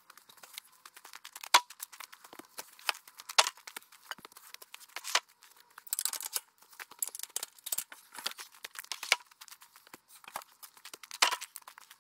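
Footsteps crunching on sawdust and frozen ground, with irregular crackling and a few sharper knocks as sawn boards are handled.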